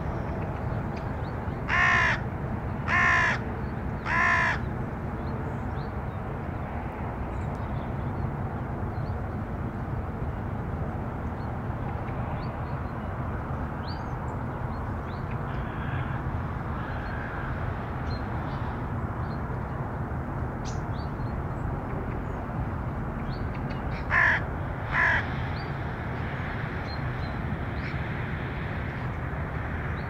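A crow cawing: three loud caws about a second apart, then two shorter caws about twenty seconds later, over a steady low rumble with faint small-bird chirps.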